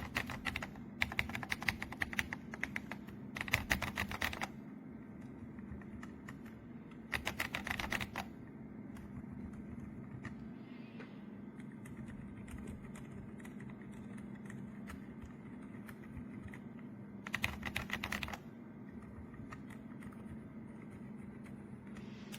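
Typing on an RK Royal Kludge S98 mechanical keyboard, in several short bursts of rapid key clicks separated by pauses, over a steady low hum.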